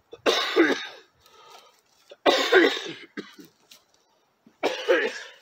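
A person coughing three times, about two seconds apart.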